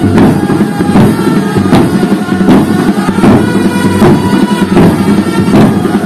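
Drum troupe's large barrel drums playing a fast, dense rhythm, with a strong accented beat about every 0.8 seconds.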